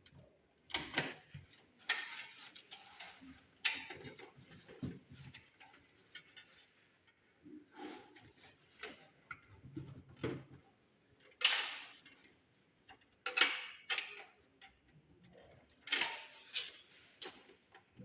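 Power cables and plastic connectors being handled and plugged back into components inside a desktop computer case: irregular clicks, knocks and rustles, about a dozen over several seconds.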